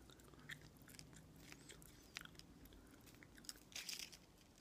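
Near silence: room tone with a faint low hum and a few faint scattered ticks, a small cluster of them near the end.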